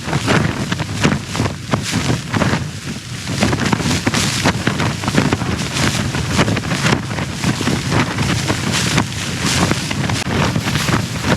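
Strong wind gusting against a small backpacking tent, the fabric flapping and snapping irregularly, with wind rumble on the microphone.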